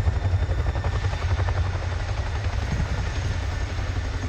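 Boeing Chinook HC.6 tandem-rotor helicopter running, its rotors beating with a rapid low pulse.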